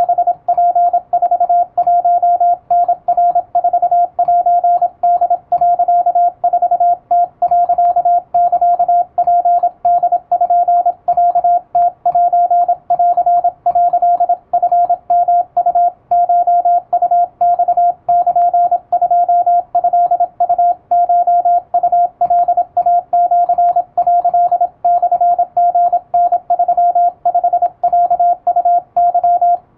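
Electronic keyer sidetone sending Japanese (wabun) Morse code: a single steady beep keyed rapidly into dots and dashes, with short pauses between characters.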